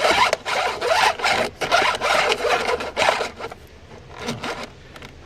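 Rubbing and scraping of hands working a wiring harness along the plastic interior trim of a car: a run of irregular scraping strokes for about three seconds, then quieter handling.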